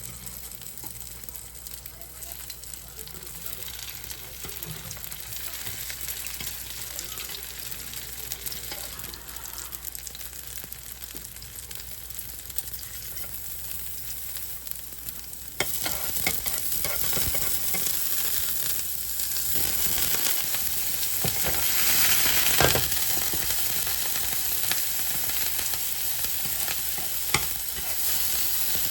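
Food sizzling in a hot frying pan, stirred and scraped with a utensil, with occasional sharp clicks. The sizzle gets suddenly louder about halfway through.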